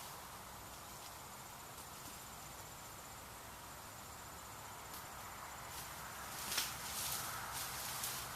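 Insects trilling steadily at a high pitch in summer, faint. A few short knocks and rustles come in during the last couple of seconds.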